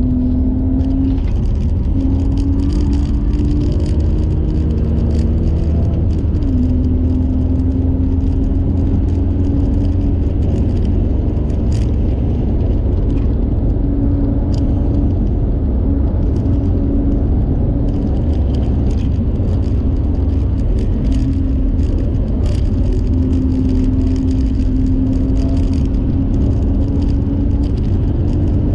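Car engine and road noise at speed: a loud, steady engine drone over heavy low rumble. Its pitch climbs slowly and drops back sharply about six seconds in, with scattered sharp rattling clicks throughout.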